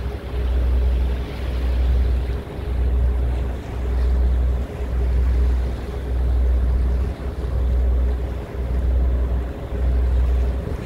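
Wind buffeting the microphone on a moving ferry's open deck: a heavy low rumble that swells and dips about once a second, over the steady drone of the boat's engine and the rush of water.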